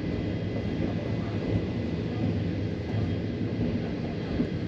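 Steady low rumble of a moving passenger train heard from inside the carriage, with a faint thin whine held steady above it.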